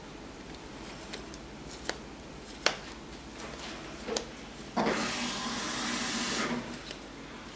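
Hands shaping a ball of soft bread dough: a few light ticks, then, a little after halfway, about a second and a half of rubbing as the dough is rolled between the palms.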